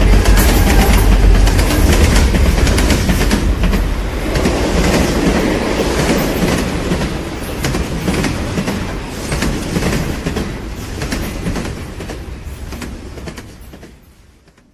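Train running on the rails, wheels clattering, loud at first and fading away over the last few seconds.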